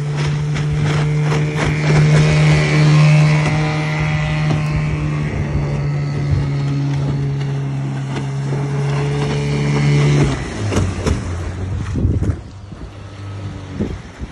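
Outboard motor running at a steady speed over a rush of wind and water. About ten seconds in it drops to a lower, slower note, then goes quieter.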